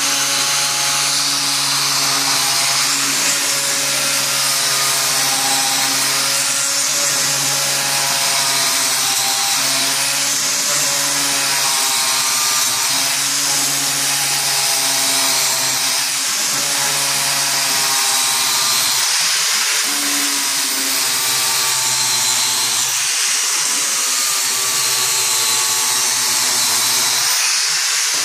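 Angle grinder fitted with an electroplated grinding cup on an aluminum body, grinding a metal plate: a steady motor whine under a harsh grinding hiss.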